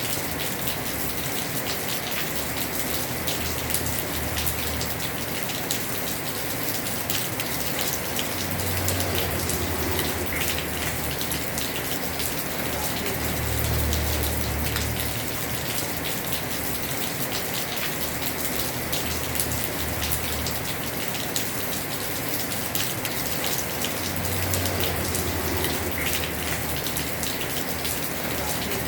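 Heavy rain drumming steadily on a house roof, dense with countless small drop ticks. A deep low rumble swells up briefly three times.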